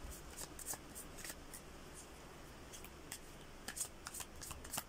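A deck of tarot cards shuffled by hand: faint sliding and flicking of the cards, with scattered soft ticks that come thicker near the end.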